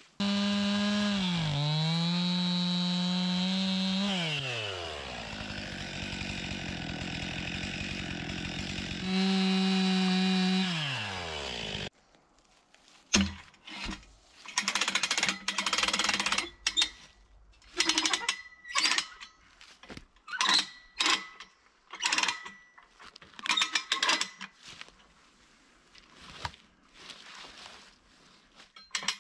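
A chainsaw runs at high revs, its pitch sagging and climbing again as it is loaded and freed, then stops abruptly about twelve seconds in. After that come irregular bursts of metallic clicking from the ratchet of a farm jack as its handle is pumped.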